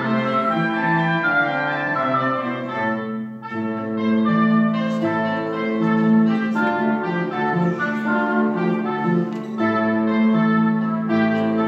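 A chamber trio of clarinet, cello and classical guitar playing live, the clarinet carrying a melodic line over held low notes. The music eases off briefly about three seconds in, then carries on.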